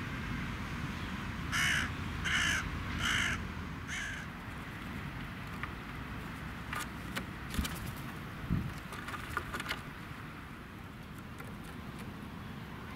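Eurasian magpie giving three loud, harsh chattering calls about a second apart, with a weaker fourth just after, then several sharp taps and clicks.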